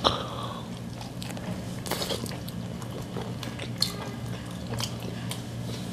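A person biting into a fried, glazed rice-cake skewer (tteokkochi) and chewing it. There is a sharp bite at the start and scattered small clicks of chewing after it, over a steady low hum.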